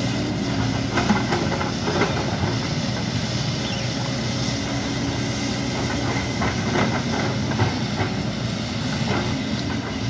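Tracked JCB excavator's diesel engine running steadily while its steel tracks clank irregularly as it crawls forward over the muddy landslide debris.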